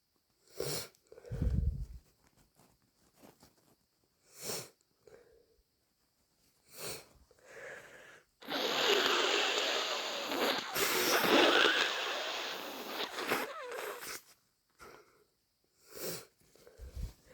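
A person with a heavily congested head cold sniffling a few times, then blowing her nose hard for about five seconds in a long, wet, snotty blow with a brief break in the middle; two more short sniffs near the end.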